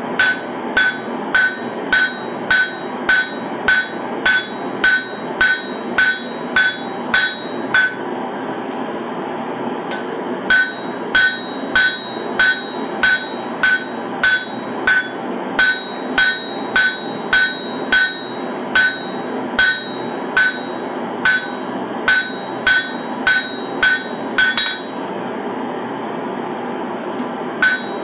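Hand hammer striking a red-hot katana blade on a steel anvil about twice a second, each blow ringing clearly off the anvil, as the blade's bevels are forged near the tang. The hammering pauses for a few seconds about eight seconds in and again near the end, over a steady background roar.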